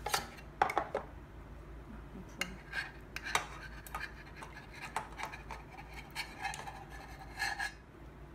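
Stainless steel measuring spoon scraping and clicking against stainless steel trays as cherry tomatoes are scooped and slid from one tray into another. Short clicks and scrapes come irregularly, loudest in the first second.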